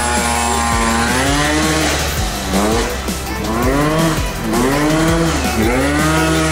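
Yamaha Jog scooter engine revving up and dropping back again and again, roughly once a second, as the throttle is blipped to try to lift the front wheel.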